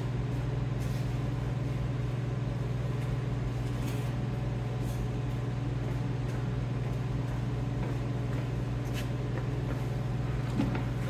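Steady low hum of a furnace running, with a few faint clicks and a soft knock near the end.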